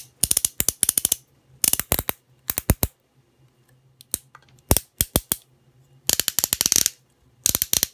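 Small hard-plastic toy figures being handled, clicking and clattering in short runs of rapid clicks, about seven times, with quiet gaps between.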